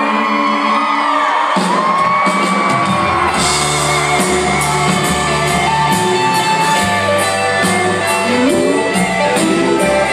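Country band playing a song, with a singing voice gliding over guitars; bass and a steady drum beat come in about a second and a half in.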